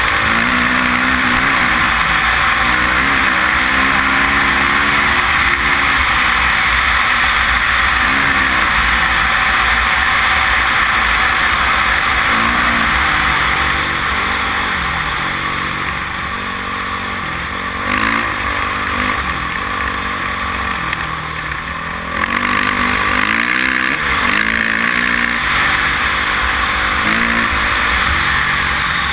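Honda dirt bike engine revving up and down through the gears, with heavy wind rush on a helmet-mounted microphone. The engine eases off for several seconds midway, then pulls hard again.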